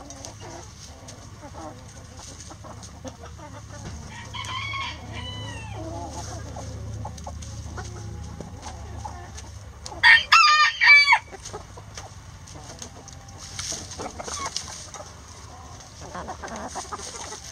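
Backyard hens clucking and calling among themselves, with a rooster crowing once, loudly, about ten seconds in.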